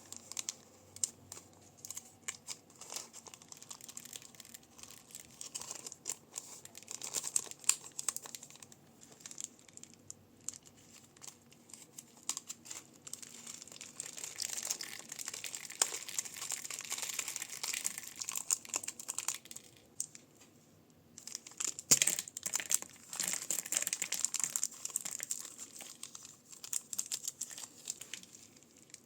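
Plastic bags and crunchy slime being squeezed and handled, giving irregular crinkling and crackling that thickens around the middle and again in the second half, with one sharp click partway through.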